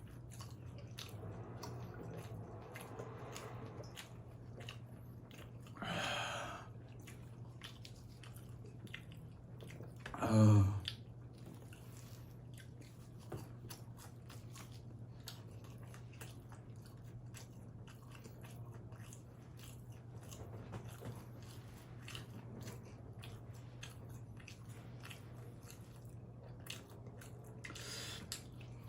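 Close-miked chewing and biting of pizza: many small wet mouth clicks and crunches, with a couple of louder brief mouth noises about six and ten seconds in. A steady low hum runs underneath.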